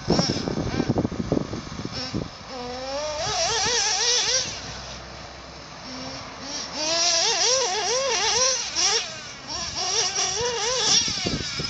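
Small nitro engine of a 1:8 scale RC buggy revving up and down over and over, each rev rising and falling in pitch in about half a second as the throttle is blipped on and off.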